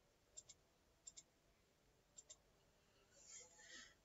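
Faint computer mouse clicks: three quick pairs of clicks in the first half, then a faint breathy hiss near the end.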